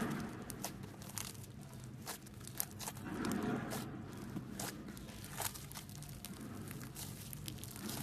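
Slime being pressed and pulled by hand, giving many crisp crackling clicks and a tearing, crinkly sound, louder about three seconds in.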